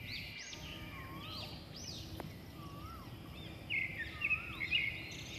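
Birds chirping and singing in many quick arching notes, with a few lower swooping whistles, and a louder burst of chatter about four seconds in.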